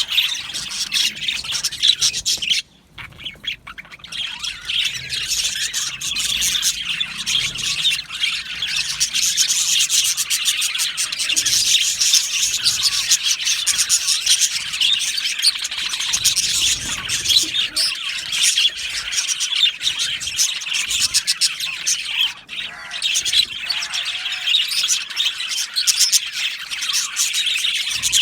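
A flock of budgerigars chattering, chirping and squawking continuously, many birds at once, briefly falling quiet about three seconds in.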